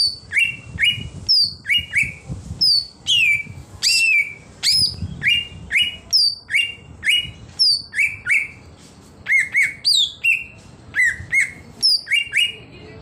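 Male green leafbird (cucak ijo) singing: a quick, steady run of short, sharp whistled notes, about two a second. High down-slurred whistles alternate with lower upswept chirps, the chirps often coming in pairs.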